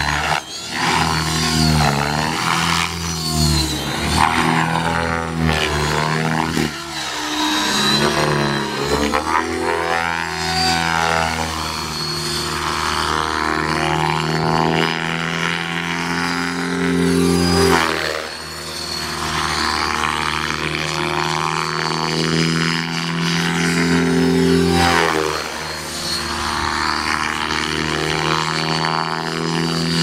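Radio-controlled model helicopter in flight: a continuous engine-and-rotor drone whose pitch rises and falls as it manoeuvres, dipping briefly in level a few times.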